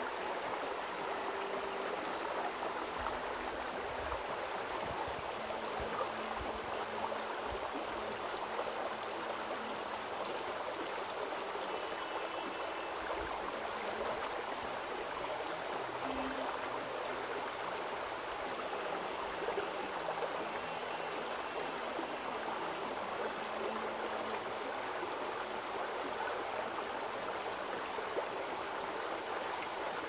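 Steady rush of a shallow river, with water sloshing as a plastic gold pan is dipped and swirled in it.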